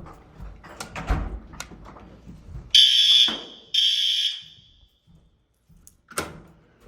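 Fire alarm sounder going off in two short, loud, high-pitched blasts about half a second apart, set off by a detector test. A few light knocks come just before.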